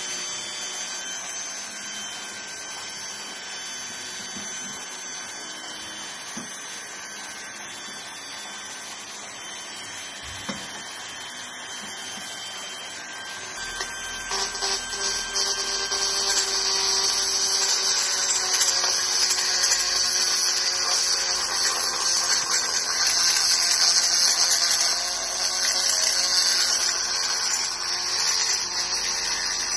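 Handheld rotary tool running with a steady high whine, then from about halfway grinding into the two-stroke Mobylette cylinder's ports, louder and with a harsh hiss.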